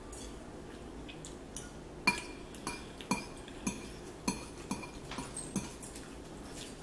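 Metal fork clinking against a bowl while scooping up ramen noodles. The sharp clinks come about every half second, starting about a second and a half in.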